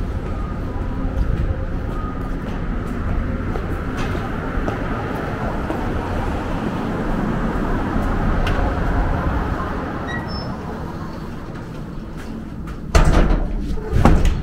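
City street traffic: a steady low rumble of passing vehicles, swelling as one goes by about halfway through. Near the end come two loud short thumps and rustles as a glass entrance door is opened.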